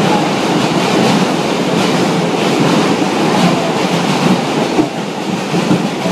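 New York City subway car of the 1 train in motion, heard from inside the car: a steady loud rumble with an irregular clatter of wheels over the rails.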